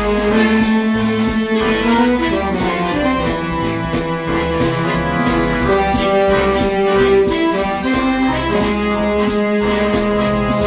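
Roland Atelier A-900 electronic organ played live: a melody on the upper manual over a moving pedal bass line, with the organ's steady drum rhythm.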